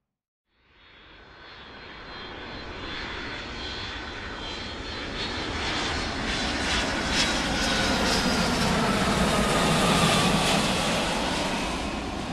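Airplane flying past: its engine sound fades in from silence about half a second in and swells steadily louder to a peak near ten seconds, with a whine sliding down in pitch as it passes, then it starts to fade near the end.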